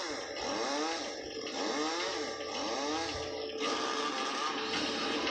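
Chainsaw revving up and down in quick repeated rises and falls, about five in the first three and a half seconds, as the climber works the cut into a thin treetop. After that a steadier sound with held tones takes over. It is heard through a television speaker.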